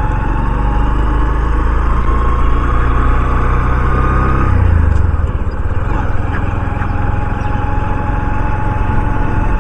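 Honda CD 110 motorcycle's single-cylinder four-stroke engine running under way, its note rising slowly and then dropping about halfway through.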